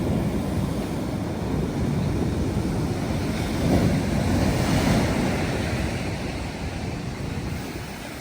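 Atlantic Ocean surf breaking on a beach: a wave swells and crashes about halfway through, then washes out and eases, with wind on the microphone.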